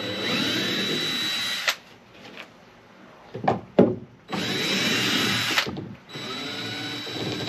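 Power drill backing screws out of wooden boards, its motor whining in three runs with a couple of sharp knocks in the gap between the first and second. Some of the screws are stripped in the wood.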